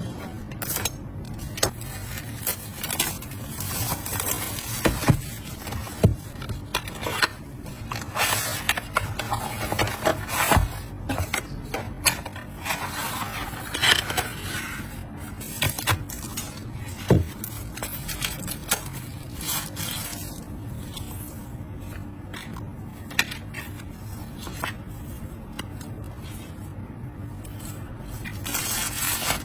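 A power bank and its packaging being handled: irregular scrapes, clicks and light knocks of plastic and cardboard, over a steady low hum.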